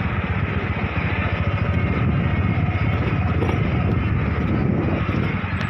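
Motorcycle engine running steadily while riding slowly, with a fast even pulsing low down and a haze of road and wind noise over it.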